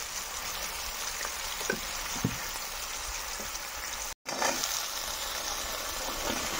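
Masala paste and chopped tomatoes sizzling steadily in hot oil in a metal wok, with a couple of light knocks from a metal spatula stirring. The sizzle cuts out for an instant about four seconds in.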